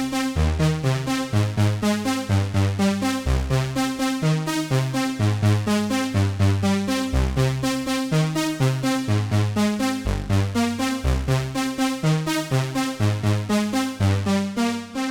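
Synthesizer keyboard patch playing a fast, even run of short plucked notes over a moving bass line.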